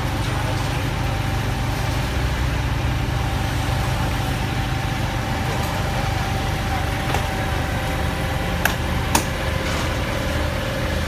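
A motor-vehicle engine idling steadily with a low, even drone. Near the end come two sharp clicks about half a second apart.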